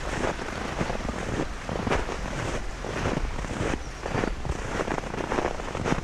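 Footsteps in snow at a steady walking pace, about two steps a second, over a steady low rumble of wind on the microphone.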